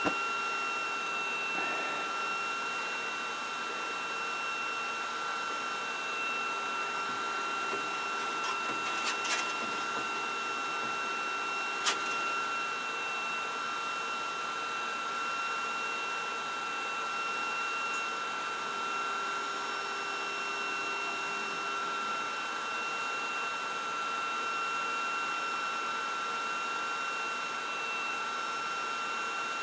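Flashforge Adventurer 5M 3D printer's cooling fans running steadily with a high, constant whine while the hot end preheats for filament loading. A few light clicks about nine and twelve seconds in.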